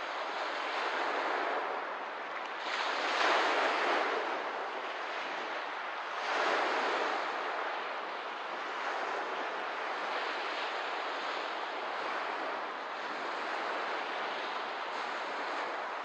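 Small lake waves washing onto the shore: a steady rush of water with two louder surges, one about three seconds in and another about six seconds in.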